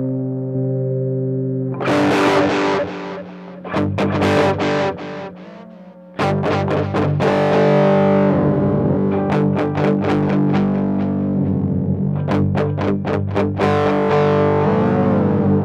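Electric guitar played through distortion and effects: a held chord rings out, then picked notes and chords start about two seconds in. The playing drops away briefly and resumes, busier, near the middle.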